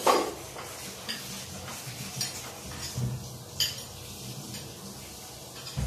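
A crisp bite into a raw pechay (bok choy) stalk, the loudest sound, right at the start, then chewing and a few light clinks of a metal spoon and fork against a glass bowl.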